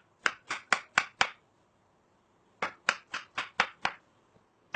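Knife chopping peeled muskmelon slices into pieces on a cutting board: two runs of quick, sharp chops, about four a second, with a pause of about a second between them.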